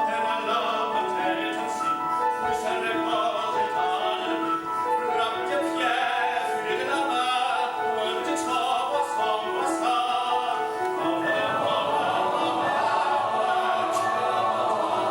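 Men's chorus singing a classical piece, voices holding and moving between sustained notes in harmony.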